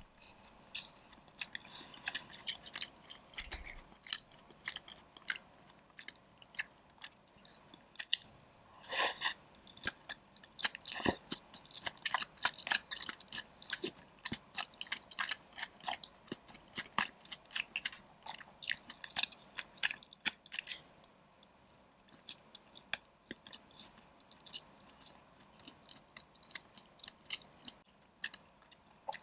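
Close-up chewing of taro soup with taro balls, boba and sweet potato: a run of small wet clicks and smacks. The clicks come densely for most of the stretch and thin out near the end.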